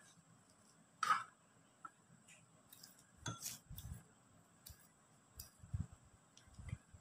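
Scissors snipping rolled popiah wrapper and light clinks and taps on a ceramic plate: a handful of separate faint clicks, the sharpest about a second in, a few with soft dull knocks.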